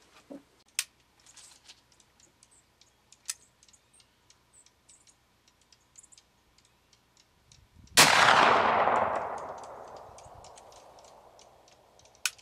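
A .50-calibre Traditions percussion-cap muzzleloading rifle fired once, about eight seconds in: one loud shot with a long echo dying away over a few seconds. Before it, a few sharp clicks as the lock is handled.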